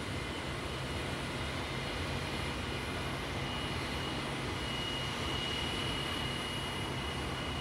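Jet aircraft engines running steadily: an even rush of noise with a low hum and a thin high whine that grows stronger about three and a half seconds in and then holds.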